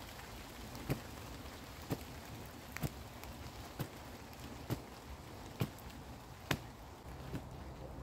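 A wooden digging stick chiselling into an earth bank: short, sharp strikes about once a second, evenly paced, over a faint steady hiss.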